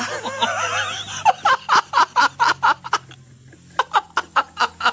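People laughing: a wavering voice at the start breaks into two runs of quick 'ha-ha' pulses, about four or five a second.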